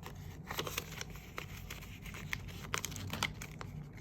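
Paper banknotes and envelopes rustling and crinkling as cash is handled and slid into a budget envelope, with irregular light crisp clicks.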